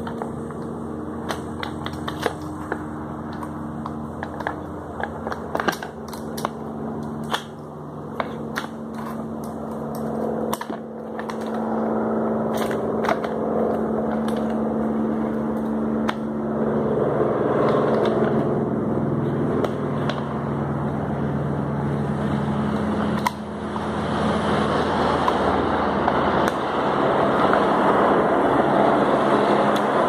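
Sharp plastic clicks and knocks as a wall fan's electric motor is handled and fitted back into its plastic housing and rear cover, over a steady low humming background that grows noisier about halfway through.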